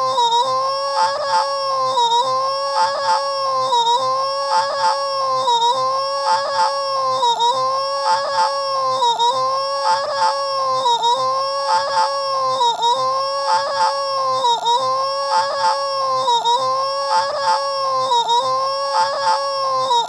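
A cartoon woman character's high-pitched, sustained vocal wail, its pitch wavering in an even swell about once a second and repeating over and over without a break.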